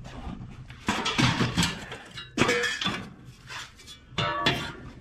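Metal parts of a cast iron wood cook stove clanking and rattling as they are handled, the enamelled steel backsplash knocking against the stove top, with a few separate clattering hits that ring briefly.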